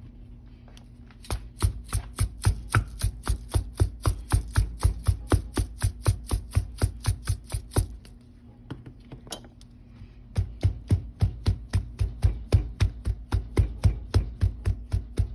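Knife chopping rapidly on a cutting board, about four to five even strokes a second, in two runs with a pause of about two seconds near the middle.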